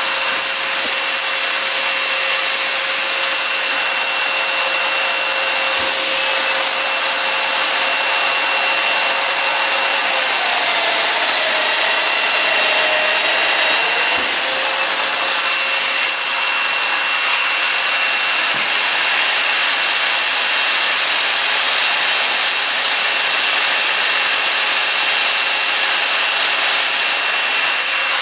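Festool Domino joiner running steadily while cutting mortises, together with the even rush of the dust extractor on its hose. Its pitch dips for a few seconds about ten seconds in, then recovers.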